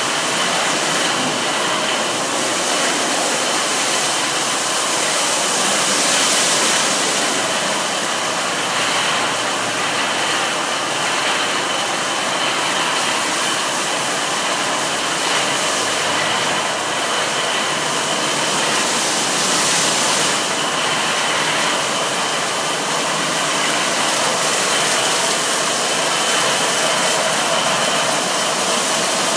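In-bay automatic car wash running: water spray and the wash machinery make a steady rushing noise with a faint steady high whine, while the spinning brushes of the gantry move onto the car.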